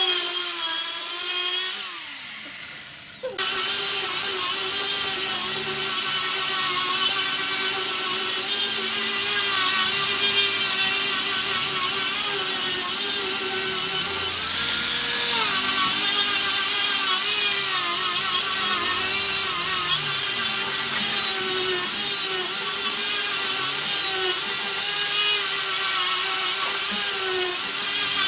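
A large wood lathe running while a turning tool cuts into a spinning redwood blank: a steady, slightly wavering motor hum under a loud hiss of cutting. The sound drops off briefly about two seconds in and comes back abruptly.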